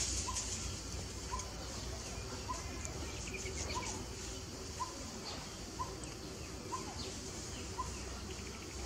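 A bird repeats a short, clear call about once a second over a steady high hiss, with a few faint higher chirps in the middle.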